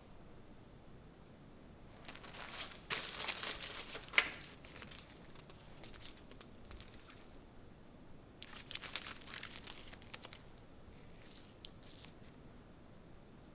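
Paper rustling as a stack of photo prints is handled and leafed through, with one sharp snap of paper about four seconds in. There is a second spell of rustling about eight seconds in and fainter rustles near the end.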